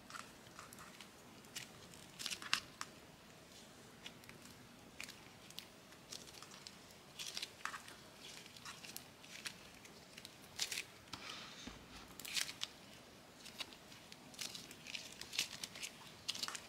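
Butter slime being kneaded and stretched by hand to work in teal colour, giving faint sticky clicks and crackles, scattered at first and coming more often near the end.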